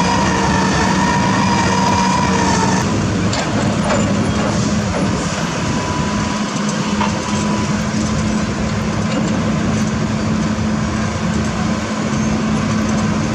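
Heavy diesel construction machinery running steadily under load, with a constant low hum. A high whine stops about three seconds in, and a few short knocks follow around three to four seconds.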